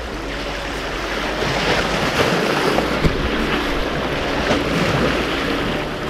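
Sea waves washing and splashing against the rocks of a stone breakwater, swelling louder from about a second and a half in and easing near the end.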